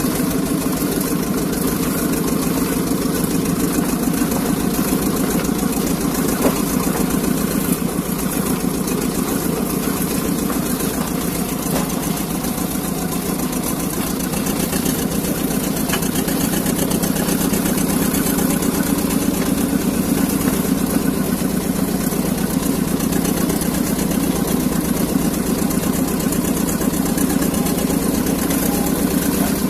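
Small narrow-gauge locomotive's engine running steadily, heard from on board as the locomotive travels along the track, with a fast, even firing beat.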